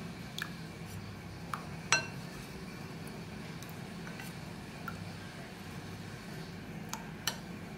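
Metal spoon clinking against a ribbed glass bowl while stirring a thin flour batter: a handful of light, scattered clinks, the loudest about two seconds in, ringing briefly.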